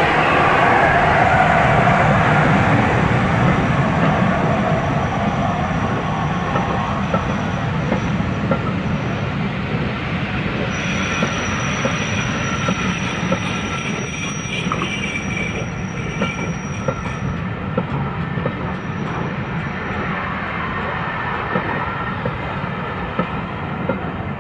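Steam-hauled passenger train rolling past: the class A4 Pacific locomotive goes by at the start, then its coaches roll past with wheels clicking on the rails. A thin high wheel squeal sounds from about eleven to seventeen seconds in. The whole sound slowly fades as the train draws away.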